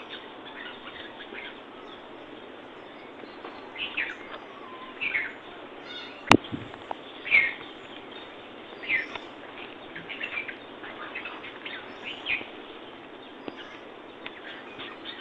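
Birds chirping, short calls scattered throughout over a steady background hiss, with a single sharp click about six seconds in.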